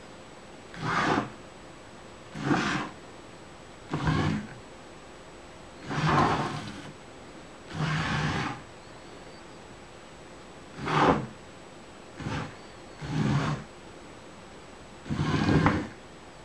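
A small robot car's electric drive motors and gearbox whirring in short bursts, about nine times at irregular gaps, as the car is driven in brief stops and starts.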